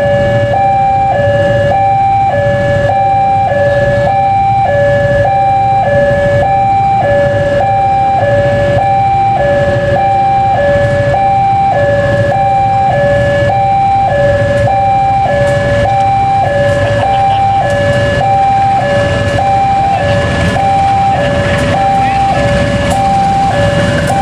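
Railway level-crossing warning alarm sounding a two-tone electronic chime, switching between a high and a low note about once a second, over the low rumble of an approaching KAI diesel locomotive. Past the middle, a regular clicking of train wheels over the rails comes in as the train reaches the crossing.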